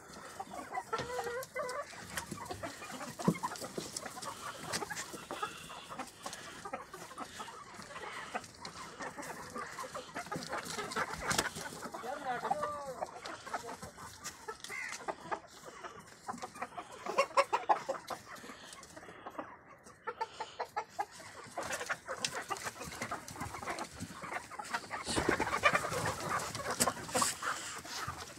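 A flock of Black Australorp chickens clucking and calling, many short overlapping calls with scattered sharp clicks.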